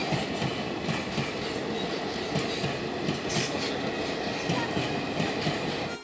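Passenger train running past, its coach wheels clattering over the rail joints in a quick, uneven rhythm under a steady rumble.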